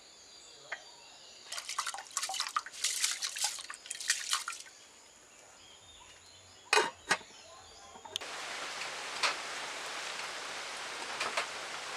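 Ingredients dropping into a steel pot of water, a run of splashes and clatter. About seven seconds in, a steel lid clanks twice onto the pot. From about eight seconds a steady hiss with scattered ticks takes over.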